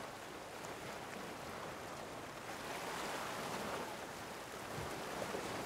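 Sea waves washing steadily, a continuous surf hiss with no distinct breaks.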